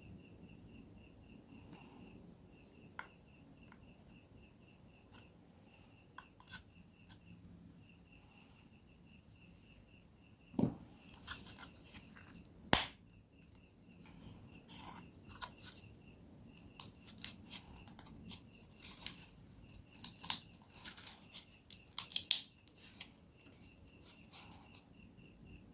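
Small clicks, taps and scraping of hand tools working on a Samsung Galaxy A03s phone's plastic housing during disassembly. They are sparse at first and busier in the second half, with one dull knock and a sharp click near the middle as the loudest sounds. A faint, even pulsing chirp runs underneath.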